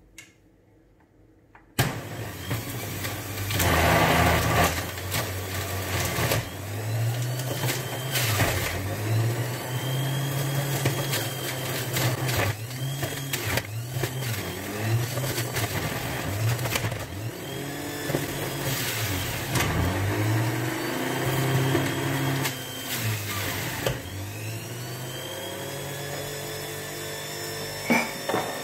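Electric juicer switched on about two seconds in and running, grinding carrots, apples and ginger as they are pushed down the chute. The motor hum drops in pitch as each piece loads it and rises again as it clears, with several bursts of louder grinding.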